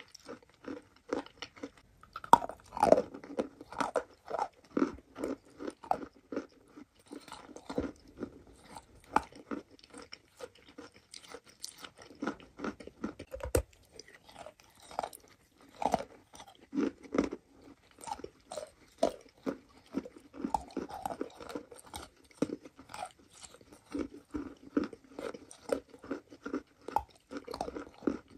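A person biting and chewing chunks of chalk coated in wet clay paste: many sharp crunches in an uneven run, with softer chewing between them.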